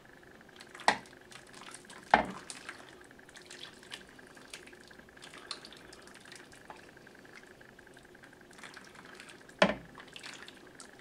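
Thick sauce poured from a stainless-steel saucepan into a metal roasting tin, with soft pouring and dripping throughout. Three sharp metal knocks stand out: about a second in, about two seconds in, and near the end.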